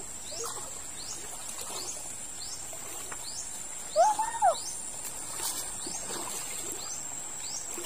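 A bird repeating a short, high, falling chirp over and over, a little more than once a second, over a steady high-pitched whine. A brief louder two-part call comes about four seconds in.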